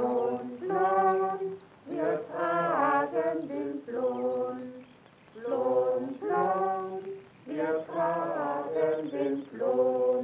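Unaccompanied singing: a song in phrases of held notes with short breaks between them, ending near the end.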